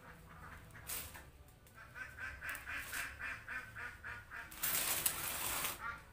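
Domestic ducks quacking in a rapid chatter, with a loud rushing hiss lasting about a second near the end.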